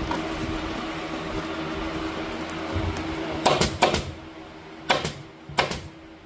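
Staple gun driving staples through vinyl headliner into the wooden roof bows: about five sharp snaps in the second half, three in quick succession and then two more spaced out, over a steady hum.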